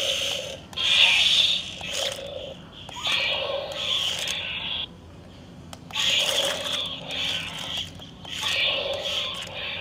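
Electronic toy sound effects through a small, tinny speaker: a string of short screeching cries, each about a second long, separated by brief gaps.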